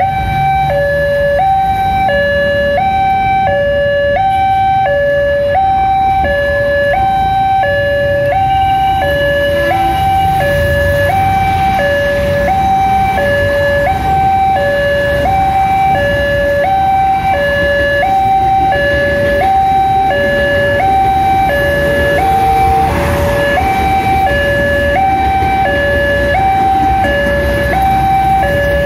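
Railway level-crossing warning alarm sounding continuously as the crossing closes for a train. It is a loud electronic two-tone chime that switches between a lower and a higher note about twice a second. Road traffic rumbles underneath.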